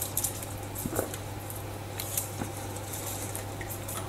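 Hands handling wet fly line in a sink of soapy water: faint small splashes and squishes, with a few light ticks about a second apart.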